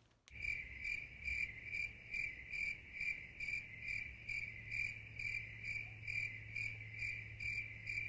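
Cricket chirping steadily, about two high chirps a second, starting just after the host's sign-off.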